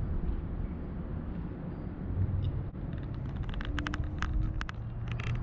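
Steady low outdoor rumble, with a run of light clicks and taps from about halfway in as the cardboard box of a new time switch is handled and set down.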